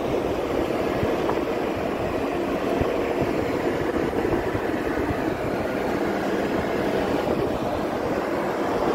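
Strong wind buffeting the phone's microphone: a steady rushing rumble, with a faint steady low hum underneath.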